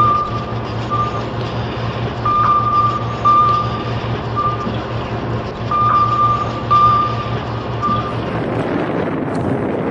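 Submarine sound effect: a steady low machinery drone with a string of short, high electronic beeps at irregular intervals that stop about two seconds before the end.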